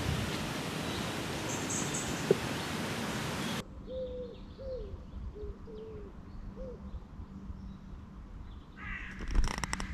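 A steady rushing noise that cuts off abruptly about three and a half seconds in. Then a quieter outdoor background with a series of about six short bird calls, followed near the end by a brief burst of rustling and clicking.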